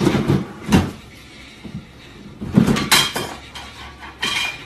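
A series of hollow knocks and clatters from a plastic swing-lid trash can as a cat moves inside it and pushes at the lid.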